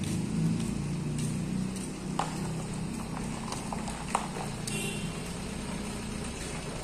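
Small Suzuki pickup truck's engine running as the truck reverses slowly, loaded with timber, with a couple of sharp clicks or knocks about two and four seconds in.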